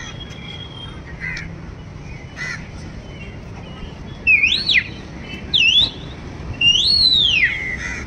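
A man gives three loud, clean whistles, each rising then falling in pitch, the last the longest. It is the whistle signal he uses when feeding the kites and stray dogs. A few fainter house-crow caws come in the first half.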